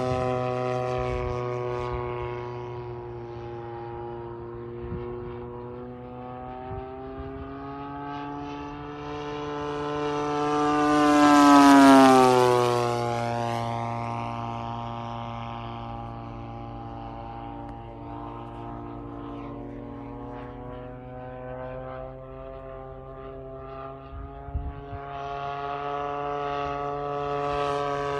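Single-cylinder two-stroke DLE 55 petrol engine of a giant-scale radio-controlled A6M Zero model in flight. It grows louder to a pass about twelve seconds in, drops in pitch as it goes by and fades, then comes back louder near the end.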